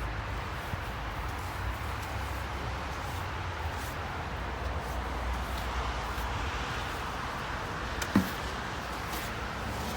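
Ice being cleared off a car in a snowstorm, under a steady low rumble, with one sharp knock about eight seconds in.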